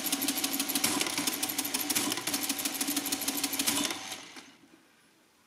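Facit CA1-13 electromechanical calculator running an automatic division: a rapid, even clatter of the mechanism cycling over the hum of its electric motor. The clatter winds down and stops about four seconds in, because the division key has been pressed to abort the division and the machine halts once the current digit is finished.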